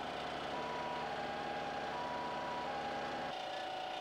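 Machinery running with an intermittent electronic warning beep, like a backing alarm. About three seconds in, the low hum drops away, leaving a lighter, faster mechanical ticking.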